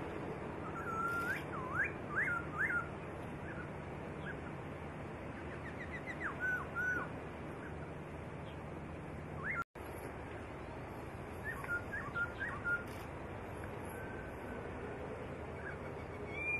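Black-throated laughingthrush singing: several short phrases of loud, clear whistled notes that swoop up and down, separated by pauses, over a steady background hiss. The sound cuts out for a split second about halfway through.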